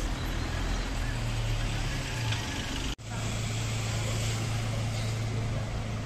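Motor vehicle engine noise: a steady low hum over street hiss, broken by a brief dropout about halfway through.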